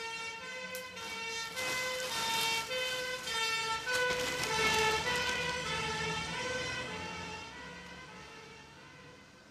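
Emergency vehicle siren sounding with a two-note back-and-forth pattern. It grows louder to a peak about halfway through, then fades away steadily.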